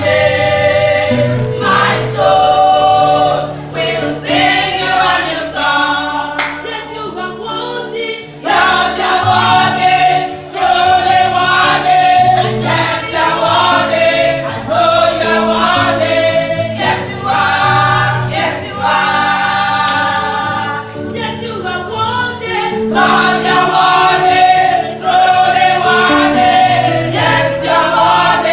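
A choir singing a gospel song with a steady bass accompaniment.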